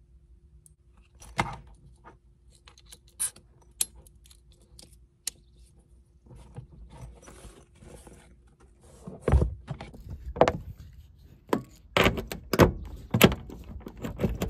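Gear being handled: scattered clicks and clinks as a bag of tyre-inflation gear is rummaged through, then a run of louder knocks and thumps over the last few seconds as a coiled air hose is pulled out and handled.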